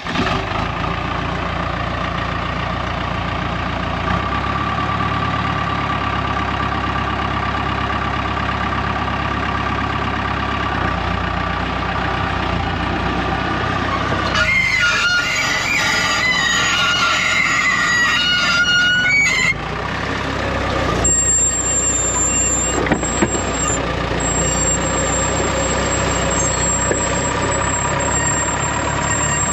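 Diesel engine of a Dressta TD-8H crawler dozer running steadily under way. A stretch of wavering high squealing comes about halfway through.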